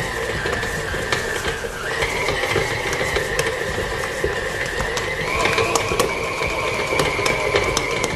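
KitchenAid stand mixer motor whining steadily as its flat beater kneads stiff bread dough, the pitch stepping up twice, with scattered knocks from the dough and beater in the steel bowl.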